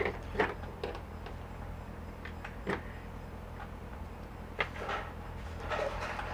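Scattered clicks and light knocks of small paint tubes and their caps being handled and set down on a table, with a few short scraping rustles near the end, over a steady low hum.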